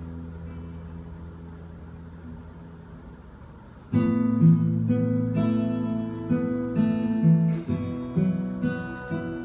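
Solo fingerstyle acoustic guitar, instrumental. A held chord rings out and slowly fades for about four seconds, then a louder passage of plucked notes and chords comes in suddenly.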